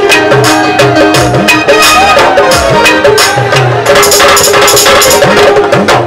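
Live Pakistani folk music from a stage band: an electronic keyboard melody over a fast hand-drum rhythm, with low drum strokes that slide up in pitch.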